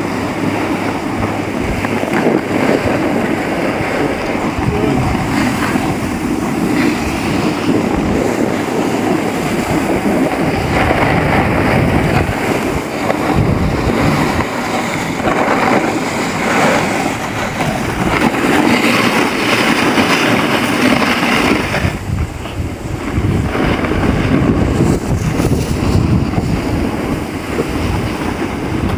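Wind buffeting the microphone together with the steady hiss and scrape of a snowboard sliding over packed snow, from a camera carried by a rider on the move; the rush eases briefly a little past twenty seconds in.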